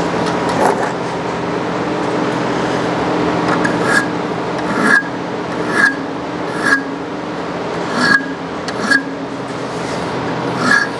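A steady mechanical hum, with short, sharp scraping strokes repeating about once a second from about four seconds in.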